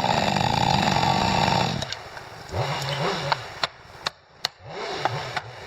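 Chainsaw running at full throttle, then dropping to a lower speed about two seconds in and revving up and down, with a few sharp cracks near the middle.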